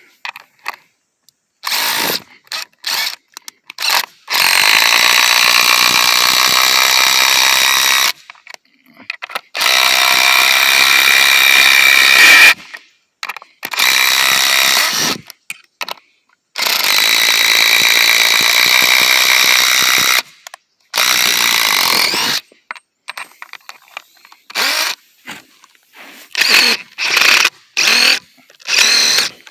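DeWalt cordless impact driver hammering as it drives lag bolts. It runs in several long bursts of about two to four seconds each, then gives a string of short trigger pulls near the end.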